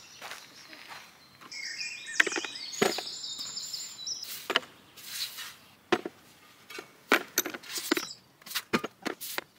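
A small songbird sings two short trilling phrases in the first half, while sharp clicks and knocks sound on and off throughout, more of them in the second half, from debris and bits of metal being handled.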